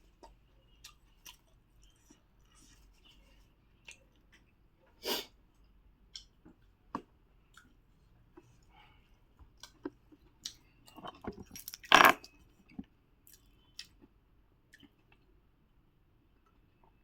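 Close-miked chewing and mouth sounds of someone eating puri with pickle and curry: scattered small wet clicks and crunches, with a louder crunch about five seconds in and a burst of louder ones around twelve seconds in.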